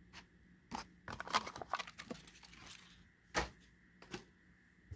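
Plastic blister packaging crackling and clicking in short, scattered bursts as a diecast car is handled out of its pack, with one sharper click about two-thirds of the way through.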